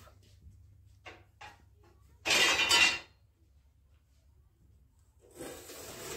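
A loud, harsh noise lasting under a second, about two seconds in. Near the end, the scrape and rattle of a steel sheet being lifted off a pile of sheets.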